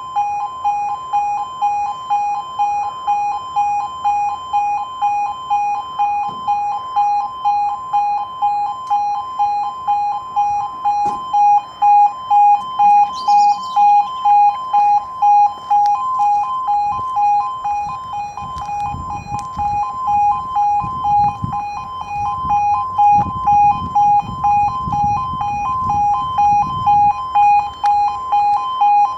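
Two E2S level crossing alarms on a half-barrier crossing sounding through the activation sequence, warning that a train is coming and the barriers are lowering: a loud pulsing electronic two-tone alarm, about two beeps a second, the two alarms slightly out of step because the crossing is long. A low rumbling noise joins underneath for several seconds in the second half.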